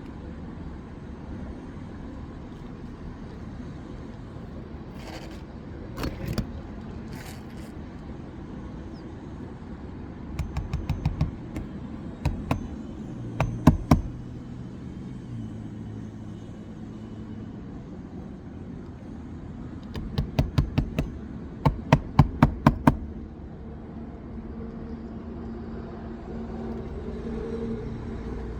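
Hammer blows on an asphalt shingle roof during a shingle repair, coming in quick runs of several strikes, about four or five a second, with the longest run near the end. A steady low rumble runs underneath.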